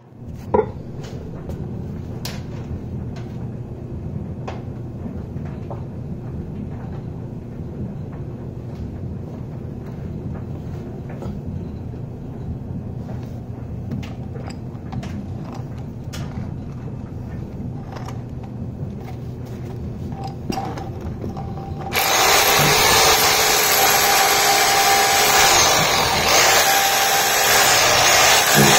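SDS hammer drill with a chisel bit running steadily against concrete to knock out carpet tack strip nails, a low hum with scattered sharp clicks. About 22 seconds in it becomes much louder and harsher, with a steady whine.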